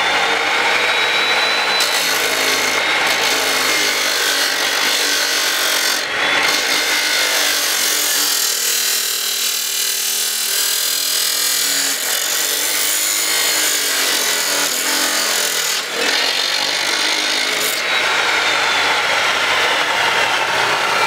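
Abrasive chop saw running at a steady high whine and grinding through metal stock as the wheel is lowered, throwing sparks. The whine falls in pitch near the end as the saw spins down after the cut.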